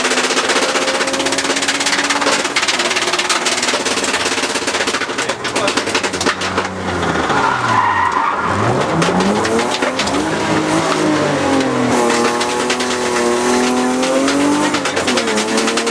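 BMW E36 rally car's engine heard from inside the cabin at speed: it slows hard for a corner with the engine pitch falling, a brief tyre squeal about halfway through, then accelerates hard with the pitch rising through the gears, with upshifts near the end.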